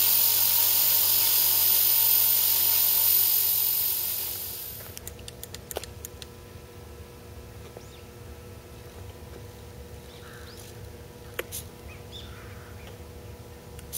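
Electric motor and rotor whine of an EXI 450 Pro RC helicopter, a steady high-pitched whine that winds down and stops about four to five seconds in as the helicopter is powered down after landing. After it, a few light clicks.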